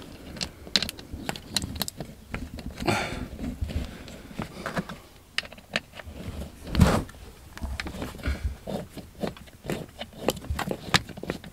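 Hand-work noise: irregular small clicks, taps and scrapes of parts and tools being handled, with a rustling scrape about three seconds in and a louder knock about seven seconds in.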